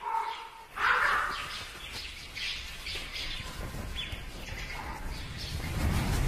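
Ravens calling at a carcass: a scatter of short calls, one about a second in and several more between about two and four seconds, over a low rumble that grows toward the end.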